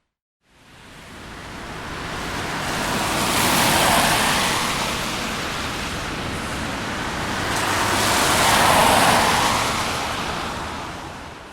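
Cars passing on a road, mostly a rush of tyre noise: one swells to its loudest about four seconds in, a second near nine seconds, then it fades away.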